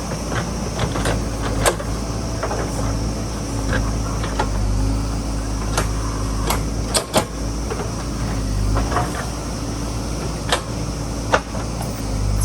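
JCB backhoe loader's diesel engine running steadily under work, with scattered sharp clanks and knocks through the engine noise.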